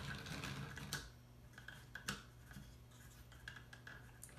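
Faint clicks and rubbing of plywood parts on a wooden mechanical model, handled while its flywheel is checked for interference on a trimmed toothpick axle, with a sharper click about two seconds in.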